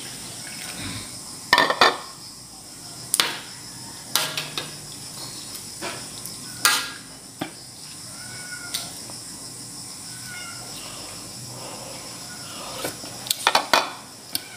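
Scattered sharp clinks and knocks of a plastic bowl and a metal ladle against a steel wok of simmering soup, with a quick cluster of knocks near the end. A few faint short high chirps sound in between.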